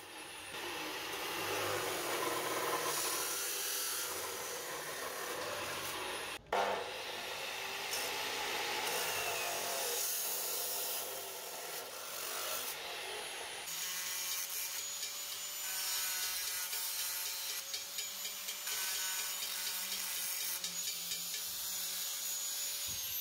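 Makita abrasive cut-off saw cutting through 30x20 mm rectangular steel tube, the disc grinding through the metal with a loud, steady hiss. The sound breaks off for a moment about six seconds in. In the second half a steady motor whine runs under the grinding.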